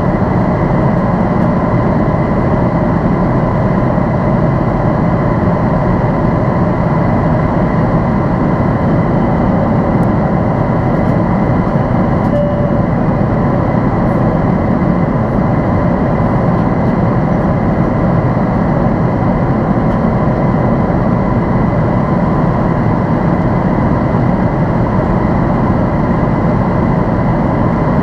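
Steady cabin drone inside a Boeing 767-400ER: engine and airflow noise, with a faint steady whine on top.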